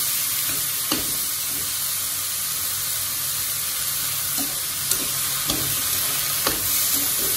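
Green beans and coral mushrooms sizzling in oil in a wok as they are stir-fried dry, with no water added. A few sharp clicks come from wooden chopsticks striking the pan while tossing.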